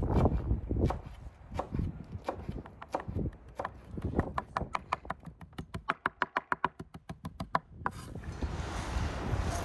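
A steel cleaver chopping fresh herbs on a wooden cutting board. The blade knocks on the board, slowly and unevenly at first, then in a fast, even run of about six chops a second. Near the end the chopping gives way to a steady rushing noise.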